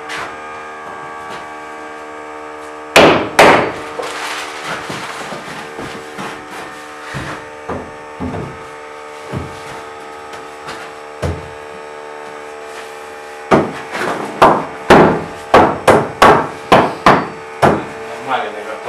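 Hammer blows on the wooden framing: two loud knocks about three seconds in, scattered lighter knocks, then a regular run of about ten strokes, roughly two a second, near the end. A steady machine hum runs underneath.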